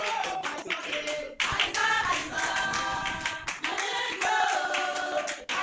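A congregation singing together, with hand clapping. The singing breaks off briefly about a second and a half in.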